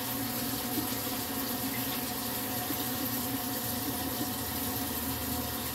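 Kitchen faucet running steadily into the sink as soapy hands are washed under it.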